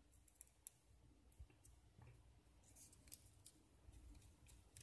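Faint, irregular clicking and scraping of a small screwdriver turning a tiny screw into a plastic hexacopter motor housing, over near-silent room tone.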